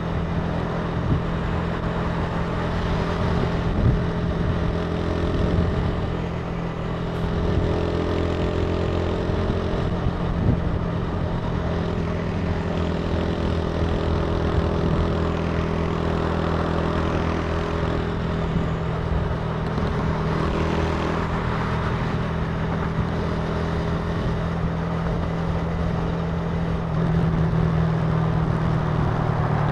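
Italika TC300 motorcycle engine running steadily under way, with wind and road noise over it. The engine note shifts a little about a quarter of the way in and gets somewhat louder near the end.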